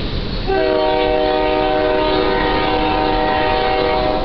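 EMD SD70I locomotive air horn sounding one long blast, a chord of several notes at once, starting about half a second in and cutting off after nearly four seconds, over steady low rumbling noise.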